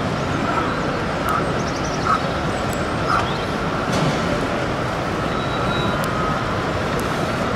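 Steady hubbub of a busy exhibition hall: indistinct crowd noise with a few faint clicks.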